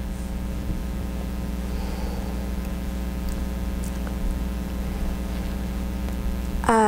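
Steady low hum with a faint hiss, the room's constant background noise; nothing else stands out.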